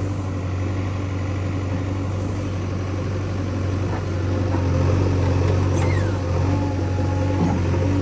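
Diesel engine of a JCB 3DX backhoe loader running steadily while digging, its note rising and growing louder for a second or two in the middle as it takes up load, then easing back.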